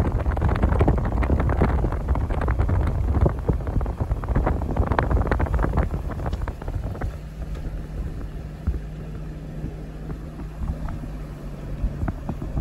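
Wind buffeting the microphone in gusts, heaviest in the first half. In the second half a steady low vehicle engine hum runs under quieter wind.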